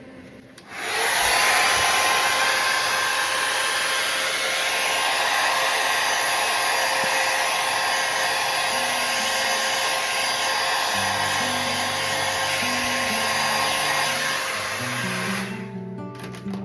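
Hairdryer switched on about a second in, blowing steadily with a faint motor whine, then switched off near the end.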